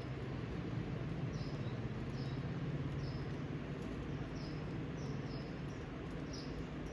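A small bird giving short, high chirps that slide downward, repeated about once a second, over a steady low hum.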